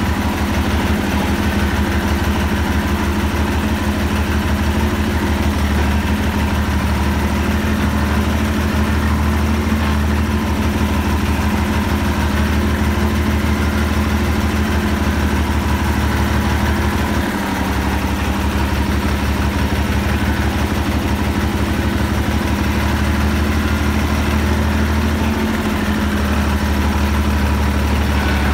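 Store 404 tractor's diesel engine running steadily while the tractor drives, with a brief dip in the engine note about 17 seconds in.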